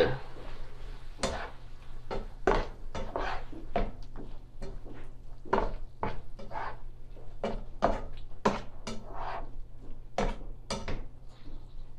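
A cooking utensil scraping and clinking against a skillet as sliced bell peppers and onions are stirred through the pan sauce, in an irregular run of short strokes, several a second.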